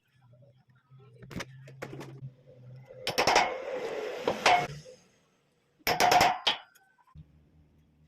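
Sharp knocks and clatter of workshop handling, with a short rough scraping noise about three seconds in and a faint low hum at times.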